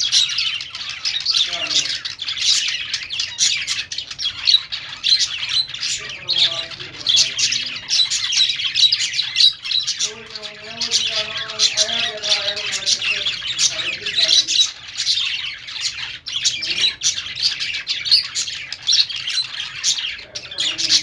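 A flock of budgerigars chirping and chattering nonstop, many birds at once in a dense, rapid, high-pitched warble.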